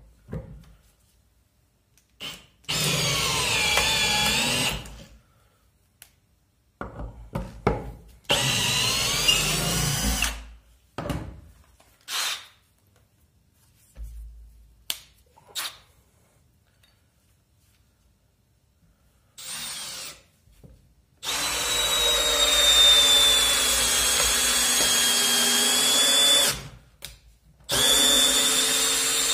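Milwaukee M18 cordless drills, the M18 FPD FUEL in second gear and the M18 CBLPD in first, boring into a wooden block with a long bit. The motors run in several bursts of a few seconds with pauses between, then in a longer steady run with a high whine from about three-quarters of the way through.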